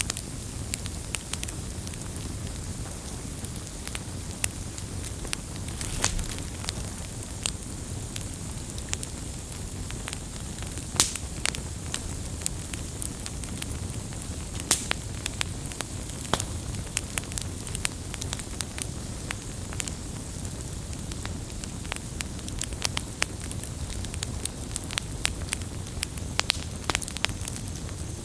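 Burning firewood crackling and popping, sharp irregular pops over a steady low rush of flame.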